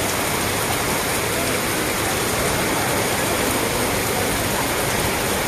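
Heavy rain pouring onto a flooded street and parked cars, a steady, even hiss.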